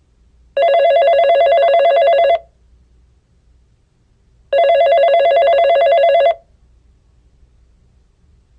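Electronic telephone ringer sounding twice, each ring a rapidly warbling trill about two seconds long, the rings about four seconds apart.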